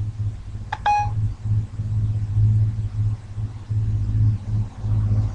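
A short electronic beep about a second in, the Siri listening tone on an iPhone 3GS, over a pulsing low rumbling hum.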